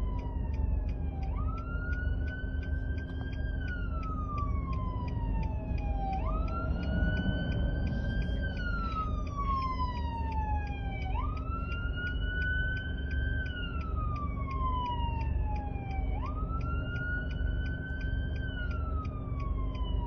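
Siren wailing in a repeating cycle: the pitch jumps up quickly, then slides slowly down over about five seconds, four times over. A steady low rumble runs underneath.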